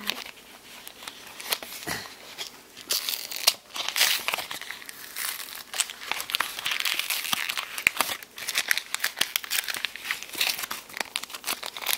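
Pokémon trading card blister pack being opened by hand: plastic and foil packaging crinkling and tearing, with many sharp crackles, busiest from about three seconds in.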